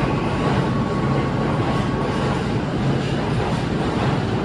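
Subway train leaving an underground station, its cars running past the platform with a steady, loud rush of wheels and running gear. A thin steady tone stops about halfway through.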